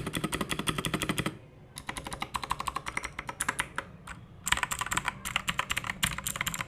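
Fast typing on a mechanical keyboard: rapid clacking keystrokes in runs, with two short pauses.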